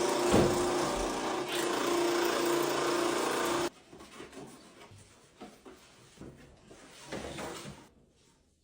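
Electric sewing machine running steadily with a humming motor, stopping abruptly a little over three and a half seconds in, followed by quieter scattered rustles and small knocks of fabric being handled.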